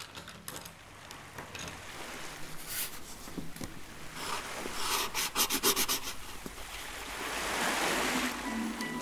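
Water splashing and lapping, with many small sharp splashes and clicks, swelling twice: once about halfway and again near the end.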